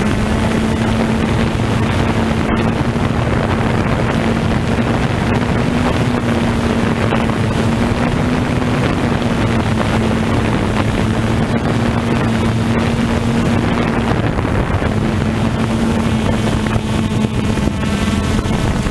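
Multirotor drone's electric motors and propellers buzzing steadily, heard from the drone's own onboard camera, with a constant hum that wavers slightly in pitch and wind rushing over the microphone.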